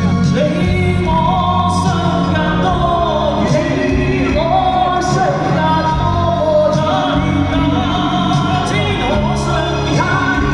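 Pop song music: a gliding melodic lead over steady bass, with a drum hit about every second and a half.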